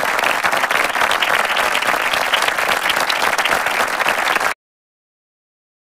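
Crowd applause, many hands clapping at once, steady and dense, that cuts off suddenly about four and a half seconds in.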